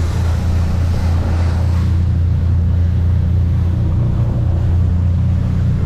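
Motorboat engine running steadily under way, a low even drone, with the hiss of the churning wake and wind fading about two seconds in.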